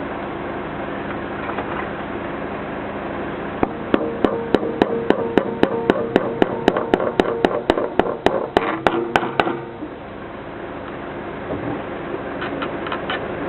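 A hammer striking a metal gutter bracket as it is fixed in place: a run of about twenty quick, ringing blows at three to four a second, stopping abruptly, with a few light taps near the end.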